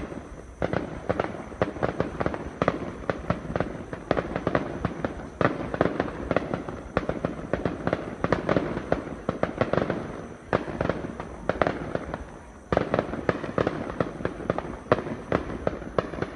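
Fireworks going off in a dense, rapid string of sharp bangs and crackles, with two short lulls in the second half.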